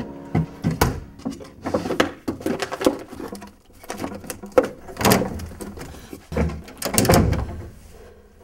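Wooden desk drawers being pulled open and pushed shut while papers are searched through: a string of knocks, short slides and rustles.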